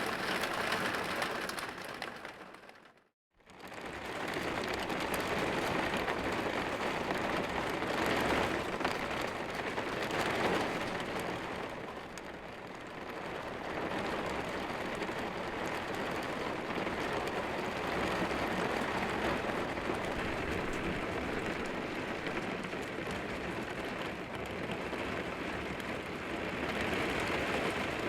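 Rain hitting a window pane, a dense steady patter of drops. It fades out to silence about three seconds in and comes straight back.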